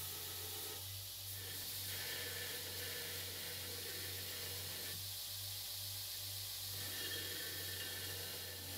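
Belt grinder running with a small steel workpiece held flat against the belt to grind its edges square: a steady hiss of abrasive on steel over a low, even hum.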